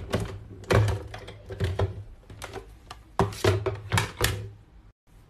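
Hand-cranked Alécia Davies A5 die-cutting and embossing machine turning, drawing the cutting plates with a steel die and printed paper through its rollers: an irregular run of clicks and knocks over a low hum, stopping about four and a half seconds in.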